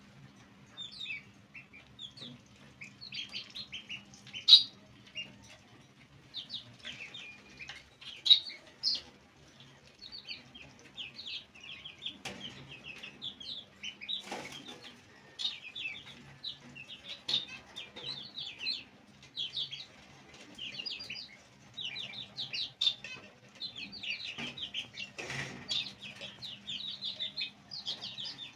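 A group of baby chicks peeping continuously: many short, high calls sliding down in pitch, overlapping in a steady chorus. There are a few brief rustling bursts, and a faint low hum underneath.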